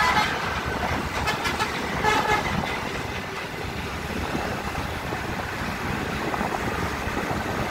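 Steady low rumble of road traffic and truck engines on the move, with a vehicle horn sounding: one long blast ending just after the start and a short toot about two seconds in.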